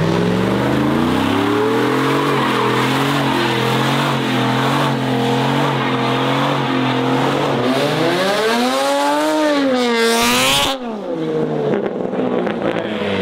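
Car engine revving hard and held high while the car spins its tyres. Near the end the revs climb and swing up and down, a short loud burst of tyre noise follows, and then the revs drop suddenly.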